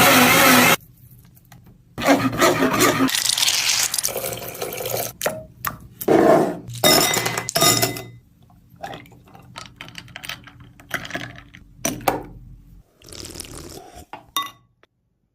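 Kitchen sounds of a drink being made: liquid poured in several stretches, with clinks and scrapes of glass and utensils between them.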